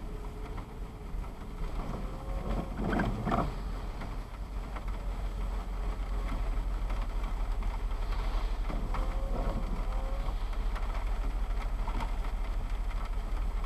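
Steady low rumble of a car moving in slow traffic on a wet highway, picked up inside the car, with rain on the windscreen. Two brief swishing noises, about three seconds in and again about nine seconds in, fit an intermittent windscreen wiper sweeping the glass.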